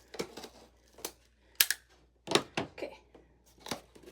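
Taped cardboard shipping box being cut and pulled open: packing tape tearing and cardboard flaps snapping, in about six sharp separate sounds, the loudest around the middle.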